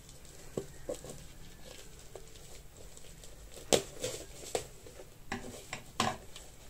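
Light handling sounds: scattered small taps and clicks of objects being picked up and set down, with two sharper clicks, one a little over halfway and one near the end.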